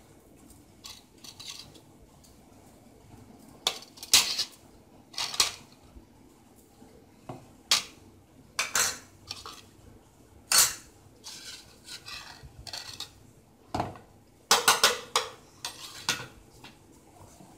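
Steel spoons clinking and tapping against a plastic mixing bowl and a plate as spoonfuls of flour and salt are tipped in and the spoons set down: scattered sharp clinks at irregular intervals, with a quick run of them near the end.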